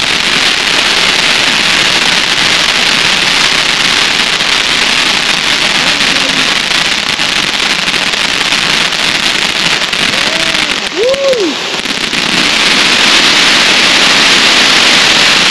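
A 500-gram fireworks fountain, Outlaw Pyro's Psychic, burning with a loud, steady hissing spray of crackling sparks. It eases briefly about eleven seconds in, then surges louder again into its finale.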